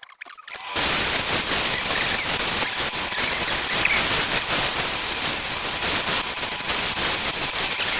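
Woodturning on a lathe: a tool or abrasive against the spinning wood gives a loud, dense crackling scrape that starts abruptly under a second in and holds steady.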